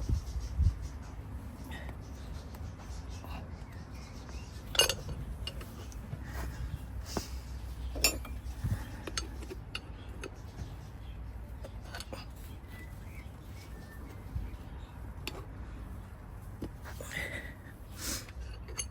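Scattered sharp clicks and knocks, with a clink now and then, as a solid tyre is worked onto an electric scooter wheel rim by hand, over a low rumble of handling. The loudest knocks come about five seconds in, about eight seconds in, and near the end.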